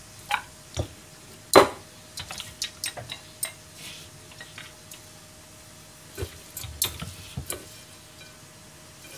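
Kitchen clatter: irregular knocks and clinks as raw chicken wing pieces are handled on a plastic cutting board and put into a stainless steel bowl, the loudest knock about one and a half seconds in.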